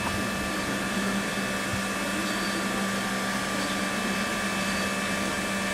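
Rebuilt 'Merchant Navy' class steam locomotive standing at rest, giving off a steady hiss with a constant hum underneath.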